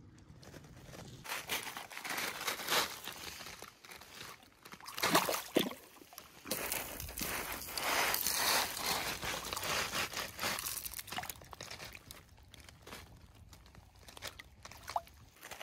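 Irregular crinkling and rustling handling noise, with a few louder bursts, as a caught smallmouth bass is held up by the lip and lowered into shallow river water.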